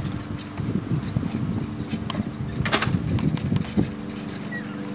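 A steady low engine drone, with a single sharp click about halfway through.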